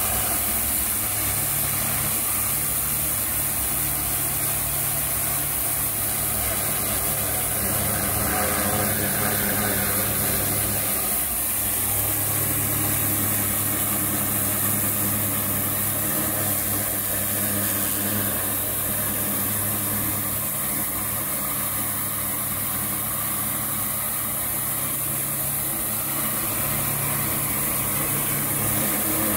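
High-pressure water jet hissing steadily as it sprays a brick facade, over the even drone of the cleaning machine's engine.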